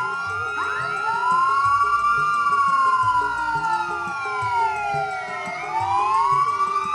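Several ceremonial sirens wailing together, their pitch slowly rising and falling and overlapping. The main wail sinks to a low about five seconds in and climbs again near the end. This is the commemoration siren that marks the moment of silence on Indonesian Heroes' Day.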